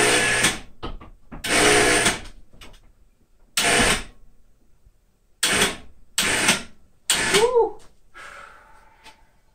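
A handheld power tool, such as a drill or driver, running in six short bursts of about half a second each, with quiet gaps between them.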